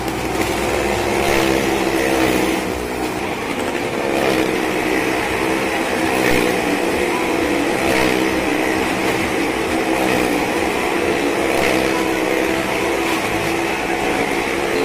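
Motorcycle engine running and revving as the bike circles the wooden wall of a well-of-death pit, swelling every couple of seconds as it passes close.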